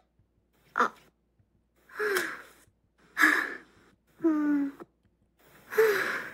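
Five short human vocal bursts played one after another, with short silences between. They are breathy gasps and sigh-like sounds, each under a second long, and one near the middle is voiced with a falling pitch. They are recorded nonverbal emotional vocalizations, samples from an emotion-recognition dataset.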